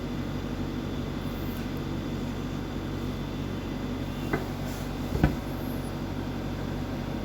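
Two sharp clicks about a second apart, the second louder: plastic clips of a laptop's base cover snapping free as it is pried open with a plastic strip. A steady hum runs underneath.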